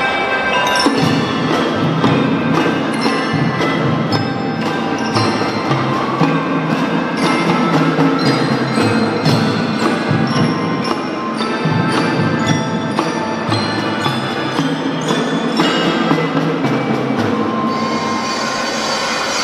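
Children's marching drum band playing a piece: metal-bar mallet instruments and a marimba carry a ringing melody over bass drums and tom drums. The drums come in more strongly about a second in.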